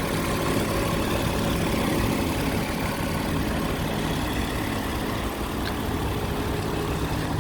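2002 Toyota Solara's engine idling steadily.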